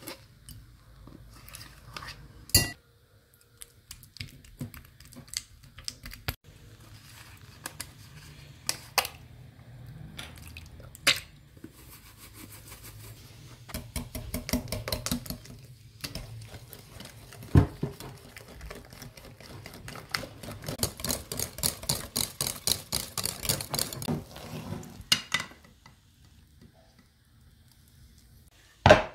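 A spoon scraping mascarpone out of its tub with a few sharp knocks, then a wire hand whisk beating mascarpone and liquid cream in a bowl, clicking rapidly against the bowl. The whisking comes in runs and is fastest and densest a little past the middle, and a single sharp knock comes at the very end.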